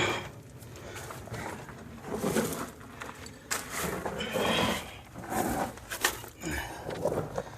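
Irregular scuffs and rustles of a person moving through a narrow dirt tunnel.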